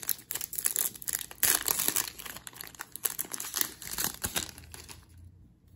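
Foil wrapper of a baseball card pack crinkling and tearing as it is handled and opened. The crackling is loudest about a second and a half in and dies away near the end.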